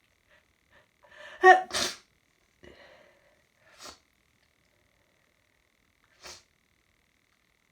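A person sneezes once, a hay fever sneeze: a quick intake, then a voiced "ah" breaking into a sharp "choo" about a second and a half in. A few short sniffs follow.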